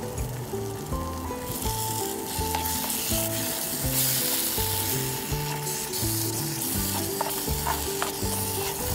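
Food sizzling in a hot pan, coming in about a second and a half in and loudest around the middle, over background music with a steady beat.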